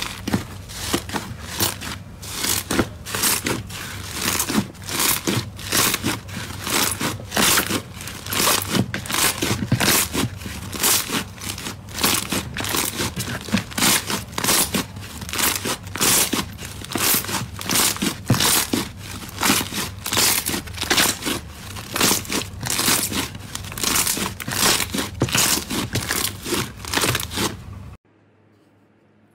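Slime being squeezed and pressed by hand, giving dense crackling and popping with sharp crackles about twice a second. It stops abruptly near the end.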